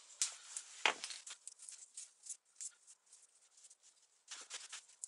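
Faint handling sounds of vinyl electrical tape being pulled off the roll and wrapped around a wire terminal: scattered small clicks and crackly rustles, with a soft knock about a second in.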